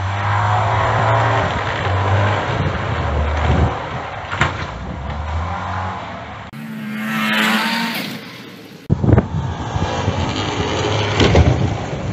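Snowmobile engines running and revving across several short cuts. About seven seconds in, one engine revs up in a rising whine. In the last few seconds it runs louder, with bursts of rushing noise.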